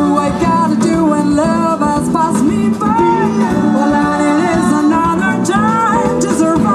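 Live band playing a jazzy pop song with a sung lead vocal over electric guitars, bass and keyboard.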